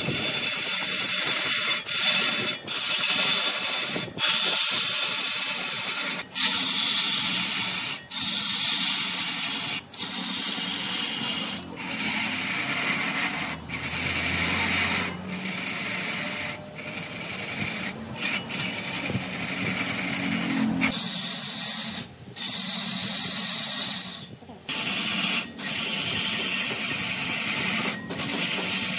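Wood being worked on a lathe: a high-pitched hissing scrape of a tool or abrasive against the spinning wood, in stretches of one to three seconds broken by brief gaps.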